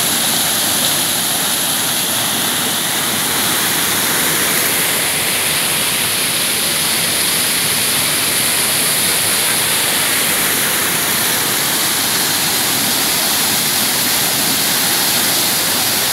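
Small waterfall pouring in several streams over boulders into a rocky pool: a steady rush of falling and splashing water.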